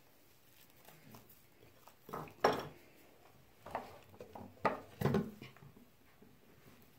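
Slime being mixed in a bowl: a handful of irregular clinks and scrapes of a utensil against the bowl, starting about two seconds in.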